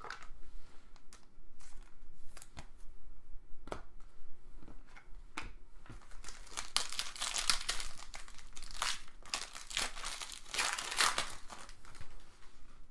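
Trading-card pack wrapper crinkling and tearing as a pack is opened, with cards handled. The first half has sparse rustles and clicks; from about halfway it becomes a dense stretch of crinkling that eases off near the end.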